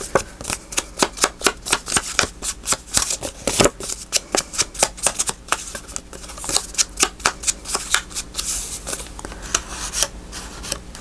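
An ink pad dabbed quickly against the edges of small paper cards to ink them, a fast run of light taps at about five a second that thins out over the last few seconds.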